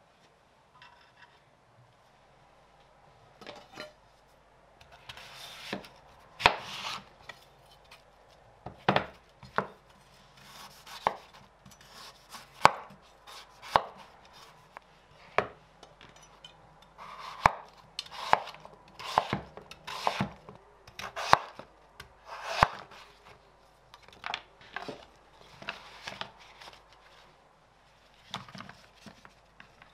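Large kitchen knife cutting the skin off a celeriac on a wooden cutting board: rasping slices through the root, each ending in a sharp knock of the blade on the board, about one a second.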